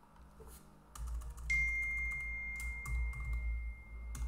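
A few keystrokes on a computer keyboard over a low steady rumble that starts about a second in. A thin steady high-pitched tone joins about a second and a half in and stops shortly before the end.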